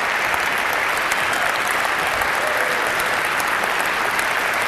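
Large theatre audience applauding steadily, a dense wash of many hands clapping.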